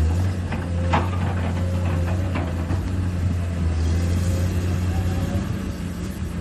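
Remote-control construction models working, with a steady low engine-like drone and a few sharp clicks and knocks, the loudest about a second in.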